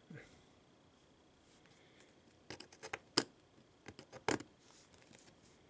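Small metal hand tool clicking and tapping against the bent aluminium corner of an iPad Air's frame: two quick clusters of sharp clicks about halfway through.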